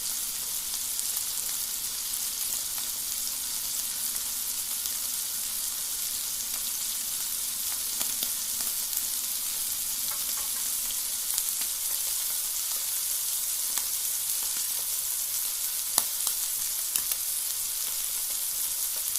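Meat sizzling steadily over a campfire, a constant frying hiss with a few sharp pops, the loudest about three seconds before the end.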